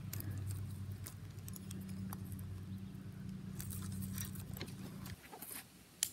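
A steady low mechanical hum with scattered light ticks over it. The hum cuts off suddenly about five seconds in, and a single sharp click comes near the end.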